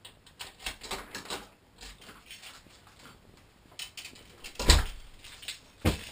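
Front door being opened and shut: a run of small rattling clicks from the lock and handle, then a heavy thud as the wooden door closes a little over halfway through, and a second sharp knock near the end.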